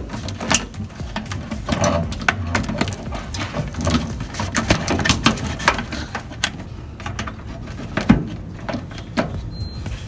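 Irregular clicks, taps and knocks of hands and tools working on a microwave oven's parts, over a steady low hum.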